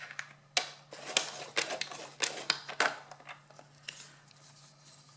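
Paper trimmer's scoring blade carriage drawn along its rail over a strip of patterned paper, scoring a fold line: a quick run of clicks and scrapes. Then fainter ticks as the paper strip is handled.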